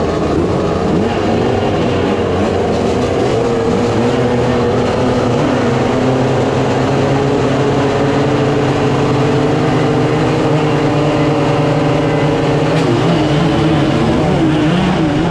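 Several motocross dirt bike engines running and revving together at the start line, their pitches wandering up and down. Near the end they rev higher as the bikes launch off the start.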